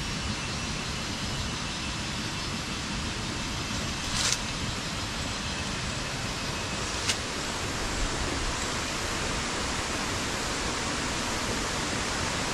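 Steady hiss of a forest stream running over stones, with two short knocks about four and seven seconds in.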